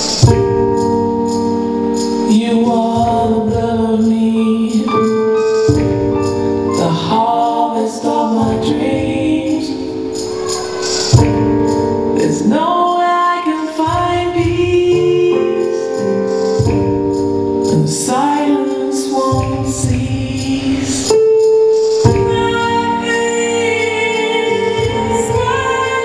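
Music: a singing voice carrying a melody over held instrumental chords, with a light, regular percussion beat.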